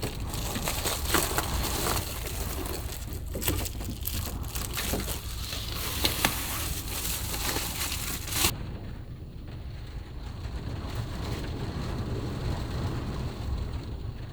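Heavy rain pounding on the roof of a Subaru Sambar kei van, heard from inside as a dense crackling patter over a low rumble. About eight seconds in, the sharp patter thins out abruptly, leaving mostly the low rumble.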